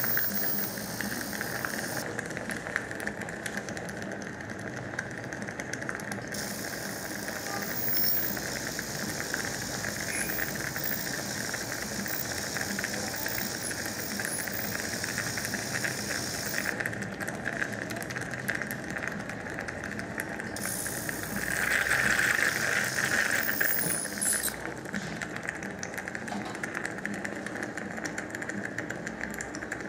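Piezotome I ultrasonic bone-surgery handpiece cutting the alveolar crest under saline irrigation: a steady high whine under a hiss. The brighter upper hiss stops and comes back three times, and the sound swells louder for about two seconds past the middle.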